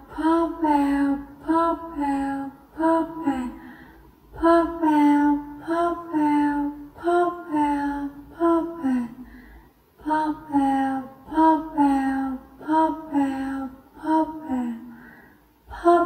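A voice repeating "pop out" over and over in a sing-song tone, in runs of a few with short pauses between.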